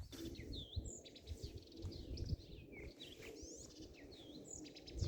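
Small birds chirping, with short swooping notes and quick trills scattered throughout, over a faint low rumble.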